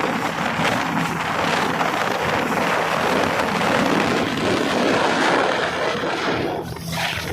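Steady rushing noise of a fast-moving speedboat: wind buffeting the microphone over the running motor and water. It eases off slightly near the end.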